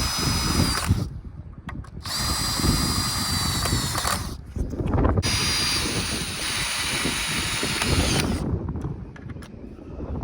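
Cordless drill driving screws into 2x4 lumber, running in three bursts with a high motor whine, the last stopping about eight seconds in.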